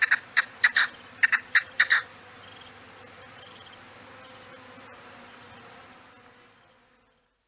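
Game bird calling: a rapid run of short, sharp notes, about four a second, that stops about two seconds in, leaving a faint steady background that fades out near the end.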